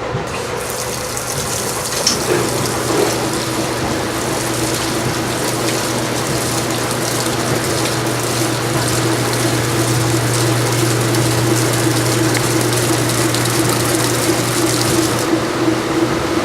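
1992 top-loading washing machine draining: its motor and drain pump run with water rushing out, over a steady low hum. About two seconds in a higher steady tone joins as the drum starts into spin. The rush of water stops near the end.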